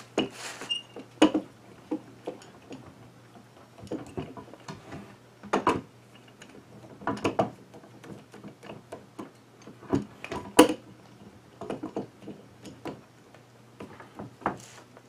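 Wooden handscrew clamp being handled against glued-up hardwood boards: irregular wooden knocks and clicks, one sharper knock about ten and a half seconds in, over a steady low electrical hum.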